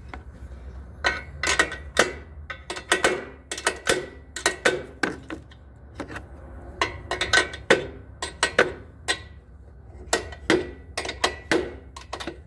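Irregular metal clicks and clinks of nuts being worked along a steel bolt on a spare tire carrier, some with a short metallic ring, over a low steady hum.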